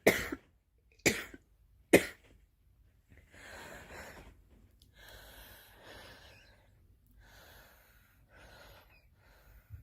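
A girl coughing: three sharp coughs in the first two seconds, then a string of noisy breaths that grow fainter.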